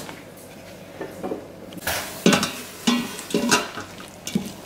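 Silicone spoon stirring diced onion and melting butter in a stainless steel Instant Pot inner pot on sauté mode. It scrapes and knocks against the pot several times, irregularly, starting about a second in, over a light sizzle.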